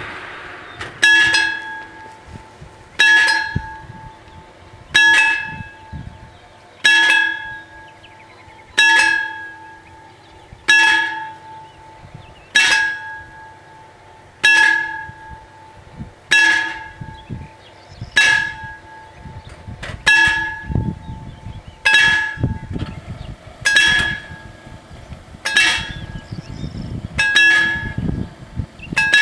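Italian level-crossing warning bell striking slowly, one ringing stroke about every two seconds, each dying away before the next: the crossing warning of an approaching train. A faint low rumble lies beneath in the second half.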